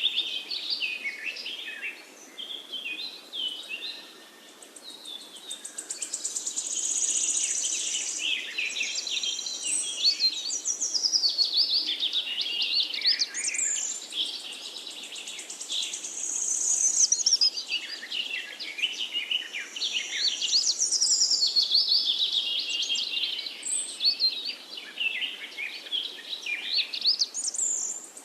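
Songbirds singing: quick chirps and trills from several birds overlap almost without pause, with a short lull about four seconds in.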